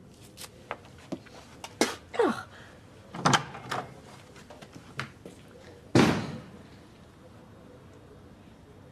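A woman's short pained gasps and cries, then a door slams shut about six seconds in, the loudest sound, its echo dying away.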